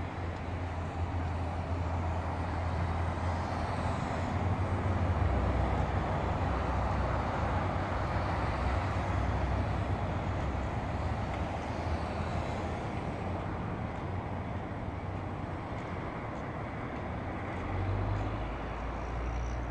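Road traffic: cars passing on a multi-lane road, their tyre and engine noise swelling to a peak in the middle and easing off, over a steady low rumble.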